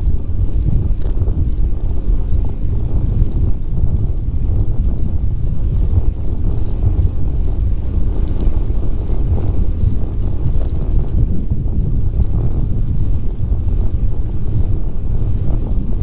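Wind buffeting the microphone while riding a bicycle along the trail: a loud, steady low rumble that flutters without letting up.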